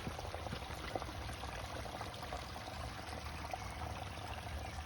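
Rainwater running steadily down over the rocks of a landscaped rock creek bed, with small waterfalls pouring: the new drainage channel is flowing properly under rain.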